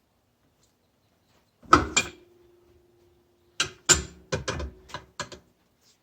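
Sharp metallic clanks of hand tools working the nut on a Yamaha Wolverine's secondary clutch: a pair about two seconds in, the metal ringing briefly after them, then a quick run of about six more clanks.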